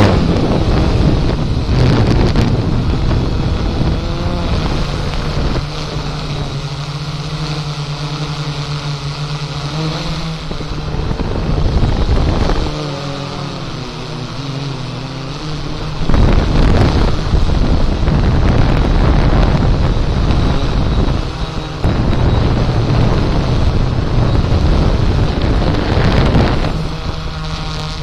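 Quadcopter drone's motors and propellers humming steadily, with wind buffeting the microphone. The motor pitch wavers up and down as the drone holds against strong wind, and it goes quieter for a few seconds past the middle.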